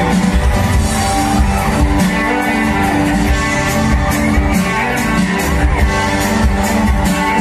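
Live band music through a concert PA: guitars over a drum kit, with a steady beat of drum strikes.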